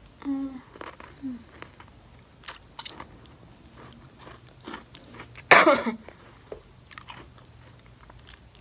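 A person chewing close to the microphone, with scattered small mouth clicks, a brief hum twice in the first second or so, and one louder burst about halfway through.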